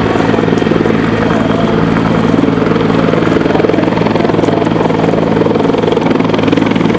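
Finnish Border Guard rescue helicopter hovering low, rotor and engines running steadily.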